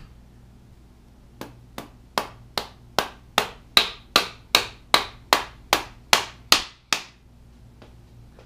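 Rubber mallet tapping the timing-chain sprocket set onto the front of a Ford 429 big-block: about fifteen even blows at roughly two and a half a second, the first two lighter.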